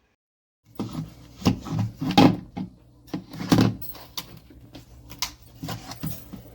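Silent for a moment, then a quick irregular run of knocks, clunks and rustles, like objects being handled and set down, over a low steady hum.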